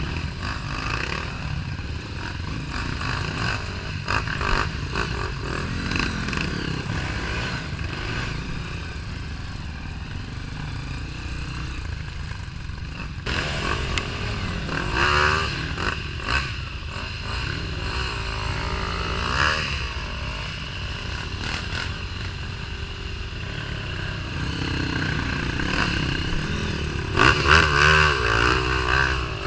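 Dirt bike engine running and revving unevenly as it is ridden over a rough trail, with clattering and scraping from the bike over the ground. It revs hardest near the end.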